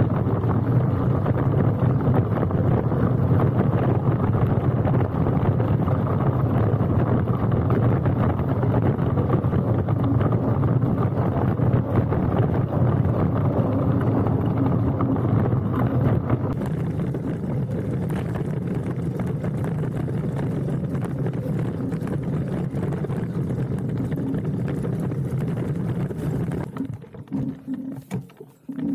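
Laotie ES19 electric scooter ridden over a rough dirt and gravel trail: a steady rumble of tyres on loose rock and wind on the microphone. It eases off about halfway through and falls away in a few dips near the end.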